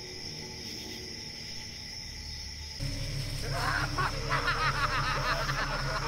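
Crickets chirping steadily at night. About three seconds in, a low steady drone starts, and a clamour of shrill, wavering cackling voices breaks out over it and keeps going.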